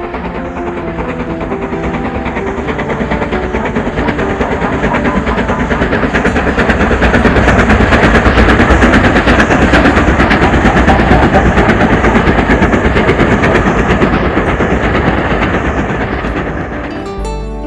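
A train passing by with a fast, continuous clatter. It grows louder to a peak about halfway through, then fades away.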